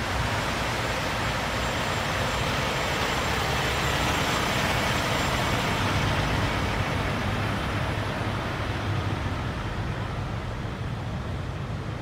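Steady rumble of idling diesel semi-truck engines and traffic standing still in gridlock, with a broad hiss over it, easing off somewhat in the last few seconds.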